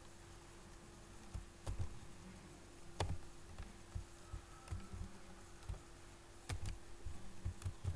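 Computer keyboard being typed on in scattered, irregular keystrokes, over a faint steady hum.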